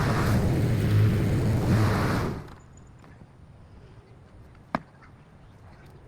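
A gas-powered lawn-care engine runs loud and close, swelling about once a second, then stops abruptly about two and a half seconds in. The quiet that follows holds one sharp click near the end.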